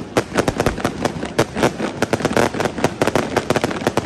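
Fireworks exploding in rapid succession: a dense, unbroken stream of sharp cracks and bangs, several a second.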